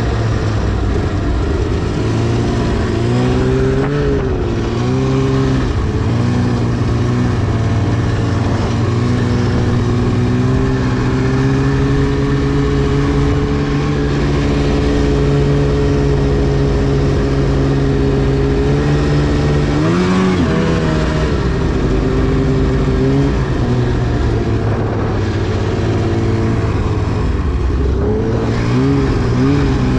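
2010 Arctic Cat CFR 1000 snowmobile's 1000cc two-stroke twin running hard at a held throttle. The pitch briefly falls and climbs back about four seconds in, around twenty seconds and again near the end as the throttle is eased off and reopened.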